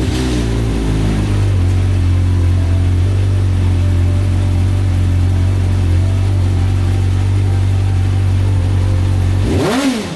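Engine of a homemade off-road buggy running steadily at idle. Near the end it is revved once, its pitch rising and falling quickly.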